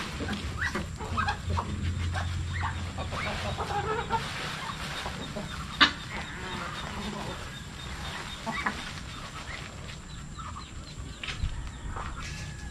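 A mixed flock of chickens and ducks clucking and calling as they crowd around feed poured out for them, with a sharp knock about six seconds in.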